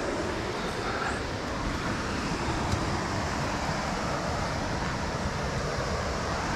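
Steady rushing roar of whitewater rapids on the Youghiogheny River, an even noise with no change, and one faint click near the middle.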